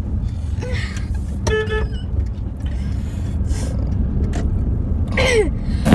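Steady low rumble of a car heard from inside the cabin. There is a brief pitched tone about a second and a half in and a short falling sound near the end.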